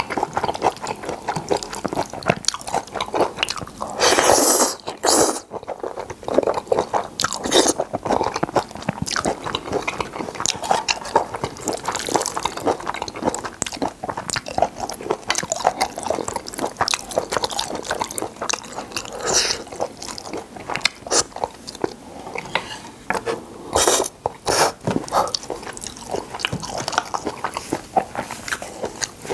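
Close-miked eating of seafood jjajangmyeon noodles: continuous wet chewing and small mouth clicks, with brief louder noisy bursts about four seconds in and again near 24 seconds.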